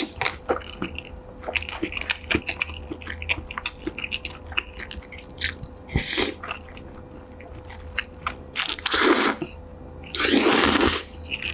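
Close-up eating sounds: wet chewing with many small mouth clicks. Three louder bites or crunches come about six seconds in, about nine seconds in, and near the end, the last lasting about a second.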